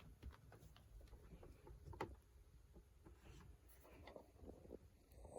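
Near silence: quiet room tone with faint scattered clicks, one sharper click about two seconds in.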